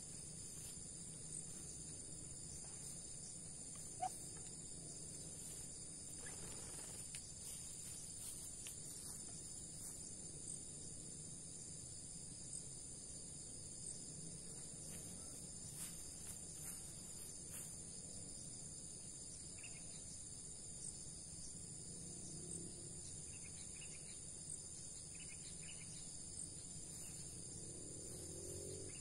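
Steady, high-pitched chorus of insects such as crickets, with one brief sharp sound about four seconds in.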